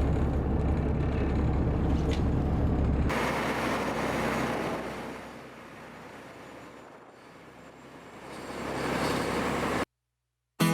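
Boat engine running as a steady low rumble under wind and water noise. About three seconds in it changes to a rushing sound that dies down and swells back, then cuts off just before the end.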